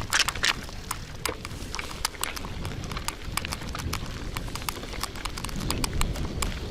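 Old 1980 KhVZ bicycle ridden over a rough wet dirt track: irregular sharp clicks and rattles from the bike over a steady low rumble of tyres on the ground.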